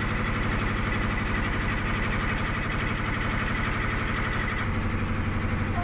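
A boat's engine running steadily, a fast even chugging with a low hum; its low note changes slightly near the end.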